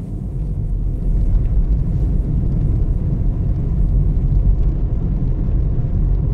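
Steady low rumble of a car driving along a road, with engine and road noise heard inside the cabin.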